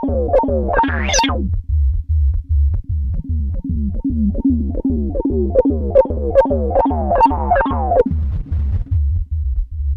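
Moog DFAM analog percussion synthesizer running a fast sequenced pattern through a Strymon Ola chorus. A steady low kick-like pulse comes about four times a second under short tones that fall in pitch. The tones brighten and swell during the first second and a half, and again from about four to eight seconds in.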